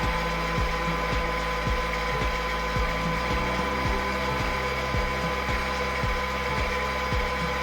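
Balancing machine for fan impellers running: a steady machine hum with a couple of constant high tones, and a light regular tick about twice a second.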